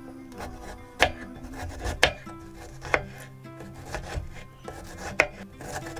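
Knife chopping garlic cloves on a wooden cutting board: four sharp knocks of the blade on the board, about a second apart with a longer gap before the last, and soft cutting and scraping between.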